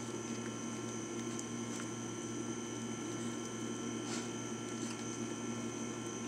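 A steady electrical or machine hum made of several steady tones, with a few faint clicks scattered through it.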